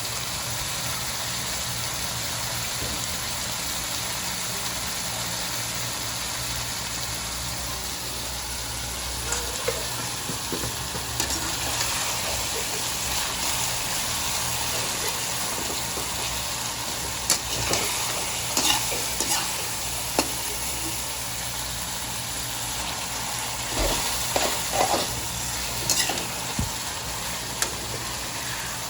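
Chicken and bitter gourd frying in hot oil with a steady sizzle, a steady low hum beneath it. From about a third of the way in, a utensil scrapes and clanks against the pan in bursts as the food is stirred, most often in the second half.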